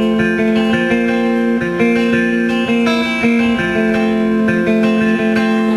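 Live band playing with electric guitar strumming chords in a steady rhythm.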